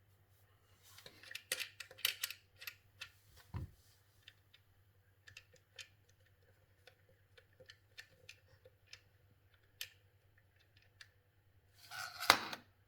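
Small clicks and light taps of speaker wire being handled and worked into the terminals on the back of a speaker, denser in the first few seconds, with a louder short noise near the end.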